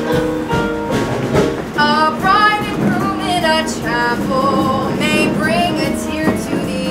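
Cast singing over musical accompaniment in a stage musical number, with several sung phrases that rise and fall in pitch over steadily held notes.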